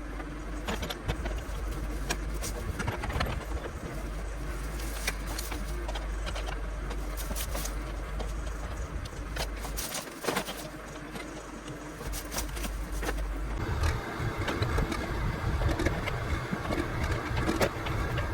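John Deere backhoe engine running under work, with scattered sharp cracks and knocks as trees and brush are pushed over. About two-thirds of the way in, the engine revs up and gets louder.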